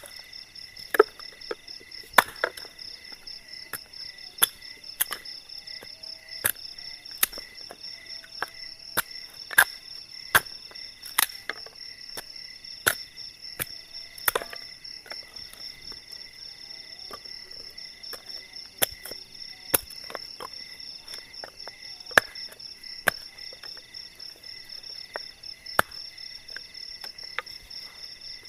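Steady night chorus of insects: a pulsing high trill with fainter buzzing tones beneath it. Over it come sharp knocks of wood being chopped by hand, about one or two a second, growing sparser in the second half.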